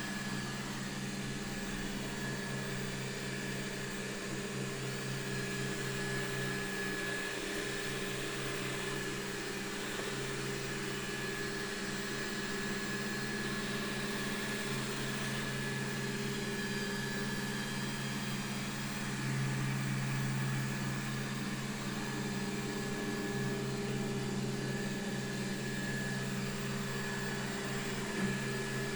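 Xiaomi Mi Robot Vacuum Mop 2 running as it cleans: a steady hum of its suction fan and drive motors with a thin high whine, a little louder for a couple of seconds past the middle, and one short knock near the end.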